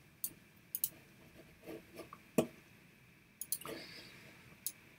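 Faint, sharp clicks, about half a dozen scattered irregularly, with a few soft, duller noises between them in a small room.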